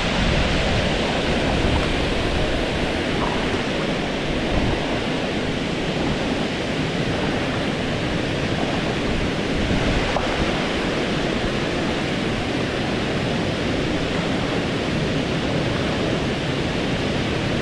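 Water pouring over a low concrete weir into a foaming pool: a steady rush of falling water.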